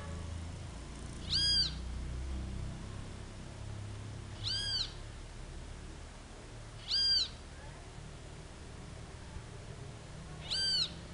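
Small black bird with white head stripes calling: four separate brief notes a few seconds apart, each rising then falling in pitch, over a low background rumble.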